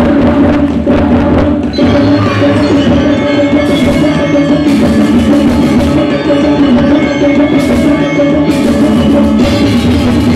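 Balinese gong kebyar gamelan playing loudly: bronze metallophones ringing over gongs and drums, with bright clashing bursts several times from a few seconds in.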